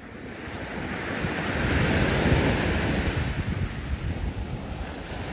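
Small sea waves washing onto a sandy shore, the surf swelling over the first couple of seconds, with wind rumbling on the microphone.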